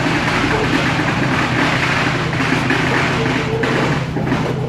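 Boat engine running with a steady low hum under a noisy wash of river and pier sounds.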